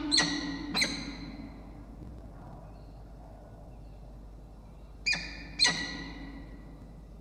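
Peregrine falcons giving short, sharp pair-bonding calls at the nest ledge: two calls near the start and two more about five seconds in.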